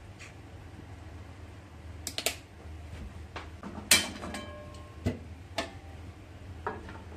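Kitchenware being handled at the stove: a few sharp clicks and knocks, the loudest about four seconds in with a brief ringing clink, as things are set down and a frying-pan lid is picked up.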